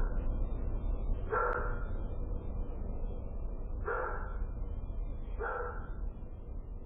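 A dog barking three times, single barks a second and a half to two and a half seconds apart, over a steady low rumble.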